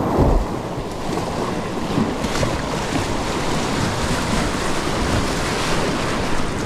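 Whitewater rapids rushing loud and close around a whitewater kayak as it runs down through them, water breaking and splashing over the bow. There is a heavier splash right at the start.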